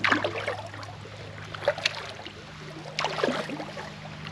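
Kayak paddle strokes: the blade dips and pulls through the water with a splash at the start and again about three seconds in, with a couple of light drips or knocks between, over a faint steady low hum.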